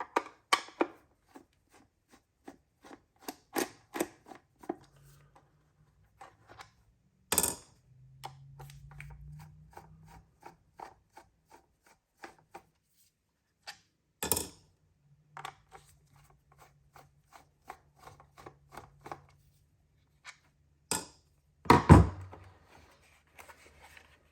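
A Phillips screwdriver backing the screws out of a multimeter's plastic case: long runs of small rapid clicks and scrapes, with three louder knocks as the tool or parts are set down.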